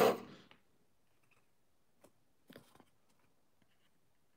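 Paper and card flaps of a children's book being handled: one short loud burst right at the start, then faint rustles and small clicks about two and two and a half seconds in.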